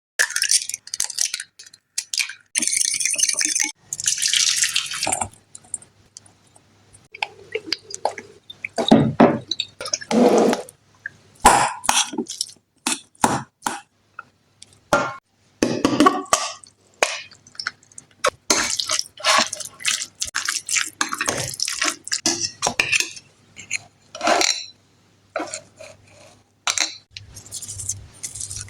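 Close-miked kitchen food-preparation sounds: a run of sharp clicks, taps and knocks of utensils and dishes, with stretches of hissing near the start and again about two-thirds of the way in.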